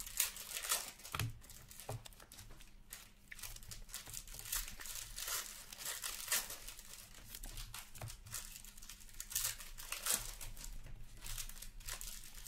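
Crinkling and tearing of a foil trading-card pack wrapper being handled and opened, with cards being shuffled by hand: many short, crackly rustles.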